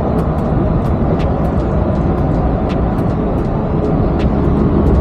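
Inside a Yurikamome rubber-tyred automated train running between stations: a steady low rumble with scattered faint clicks and rattles.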